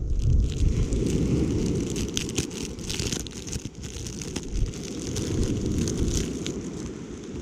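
Wind buffeting the microphone, with a higher hiss and scattered short clicks over it.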